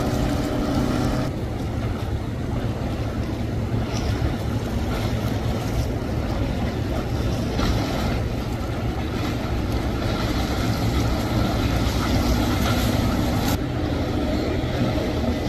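Motorboat engine running steadily, a low drone under a rush of water and wind noise.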